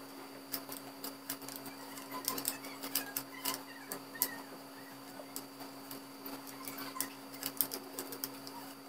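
Plastic Y-peeler scraping the skin off a ripe mango in short strokes: a run of small, irregular clicks and scrapes over a steady low hum.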